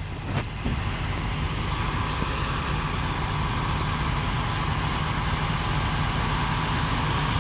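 Semi-trucks approaching slowly, their diesel engines making a steady low rumble that grows slightly louder.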